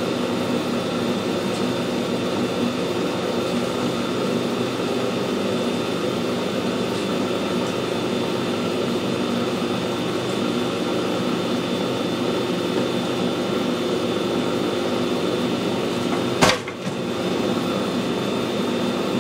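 Metal lathe running slowly in low gear at 45 RPM, lead screw turning and half nuts engaged, as the carriage feeds the threading tool through a light first screw-cutting pass: a steady mechanical hum. A single sharp click near the end.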